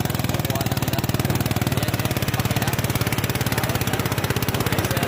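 Engine-driven portable rice thresher running steadily, its small engine beating in a fast, even pulse while rice stalks are fed into the threshing drum.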